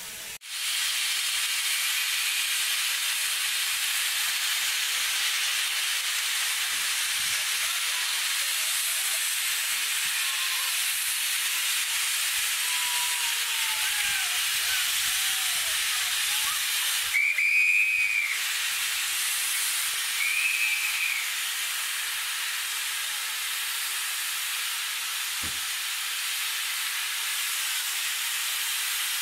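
Steam locomotive No. 4, a 2-6-4 tank engine, hissing steadily as steam escapes. Two short whistle blasts sound over halfway through, about three seconds apart.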